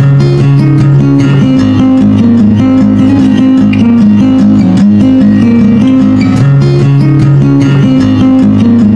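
Loud instrumental music with a steady beat and sustained low melodic notes that change in steps.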